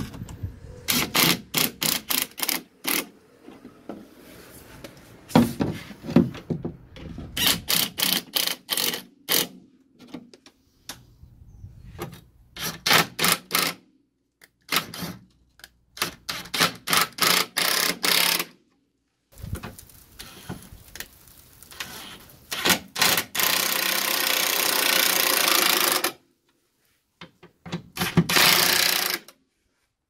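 Cordless impact wrench hammering on anti-roll bar bracket bolts in short repeated bursts, with a longer continuous run about three quarters of the way through.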